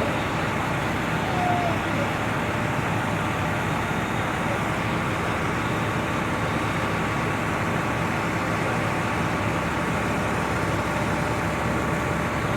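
Fire apparatus engines running steadily at the scene: a constant, unchanging engine drone.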